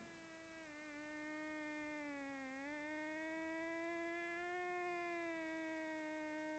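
A cat's single long, drawn-out low yowl, held without a break, wavering slightly in pitch and growing louder over the first second.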